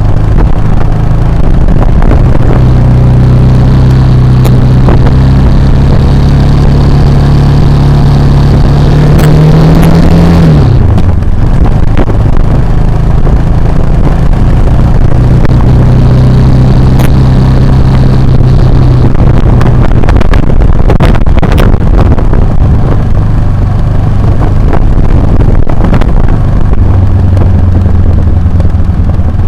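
Motorcycle engine running while riding off road, loud and close. About ten seconds in the pitch climbs, then drops sharply as the throttle closes, and it settles back to a steady run, with scattered sharp knocks.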